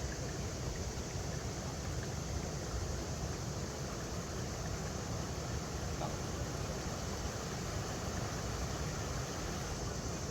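River water flowing over rocks: a steady, unbroken rushing, heaviest in the low end.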